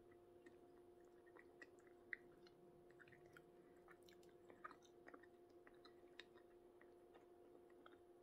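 Faint sounds of a person chewing and eating, small scattered clicks and mouth smacks, over a steady low hum.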